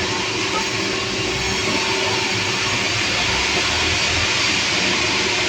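Sawmill machinery running with a steady, loud mechanical noise and a faint constant hum.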